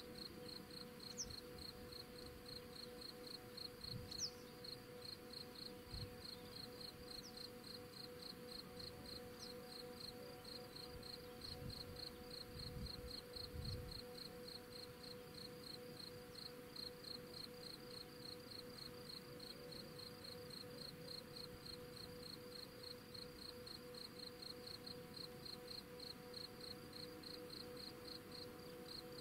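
Cricket chirping steadily in even, rapid pulses, with a few short bird calls over a faint steady hum.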